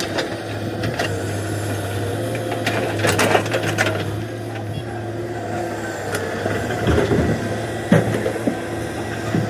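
An excavator's diesel engine running steadily, with several clanks and knocks of the machine at work. A cluster of them comes about three seconds in and more near the end.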